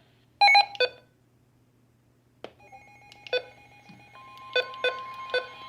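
Electronic beeps from a device: a quick cluster of sharp beeps about half a second in, then a click and single beeps roughly once a second, over faint steady electronic tones.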